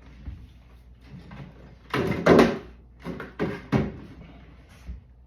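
Handling noise: a bag rustling and being shifted, in a cluster of rustles about two seconds in, then a few shorter rustles.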